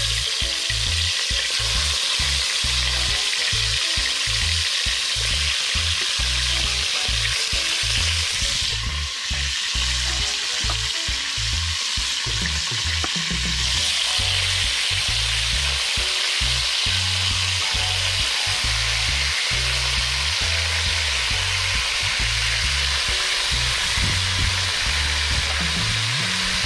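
Seasoned wild rooster pieces sizzling steadily as they fry in hot oil in a large aluminium pot over a wood fire, browning the meat for a brown stew.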